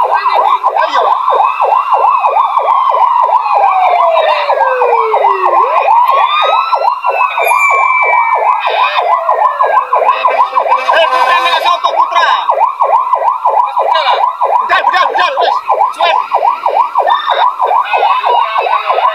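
Fire engine siren sounding a fast electronic yelp, about six rises and falls a second, with slower siren wails gliding down in pitch over it.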